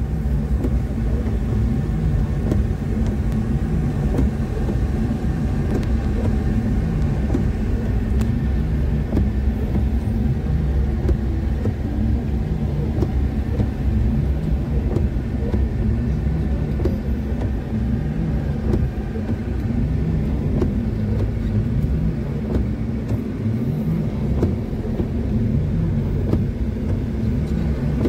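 A car's engine running and a steady low road rumble, heard from inside the cabin while driving.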